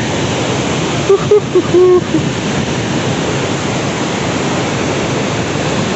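The Tons river in spate rushing through rapids over boulders, a steady roar of white water close below. A few brief, louder sounds, partly voice-like, break in between one and two seconds in.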